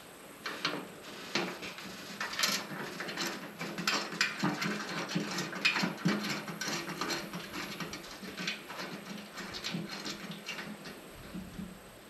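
Irregular small metal clicks and scrapes as bolts and washers are threaded by hand into the sump's round flange plate on top of a fuel cell.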